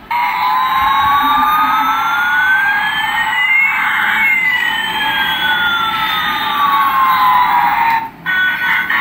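Battery-powered toy airliner's electronic jet sound effect, played through its small built-in speaker as it is switched on. One pitch sweeps up and another sweeps down over about eight seconds above a steady rushing noise, then it cuts off suddenly.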